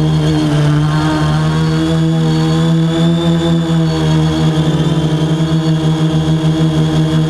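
Quadcopter drone's propellers and motors whining steadily as it climbs, with a fast pulsing wobble in the tone from about halfway through, as the rotor speeds drift slightly apart.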